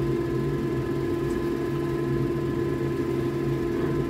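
A steady motor hum from a running household appliance, holding one low pitch with fainter higher tones and no change.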